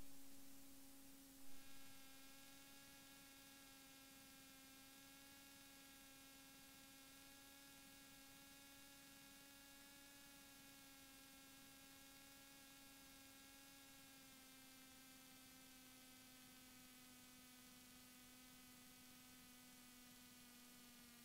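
Near silence on the aircraft's headset audio feed: a faint steady electrical hum, sinking slightly in pitch toward the end, with a couple of faint blips about a second and a half in.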